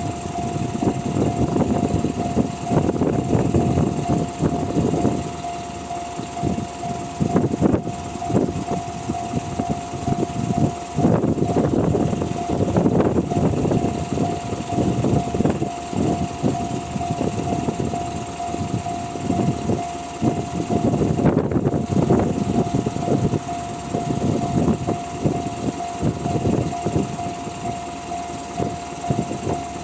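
Railway level-crossing alarm in the Tohoku style, sounding a steady electronic tone, while a JR East electric commuter train runs over the crossing. The train's wheel-and-rail rumble, full of short clacks, rises and falls under the alarm.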